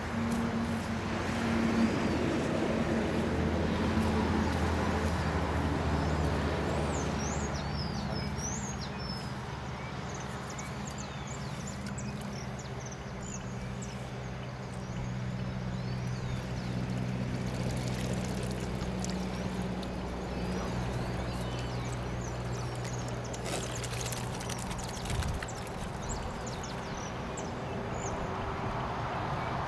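A motor running steadily with a low hum, while water splashes as carp fry are handled in a seine net. Small birds chirp now and then, high over the hum.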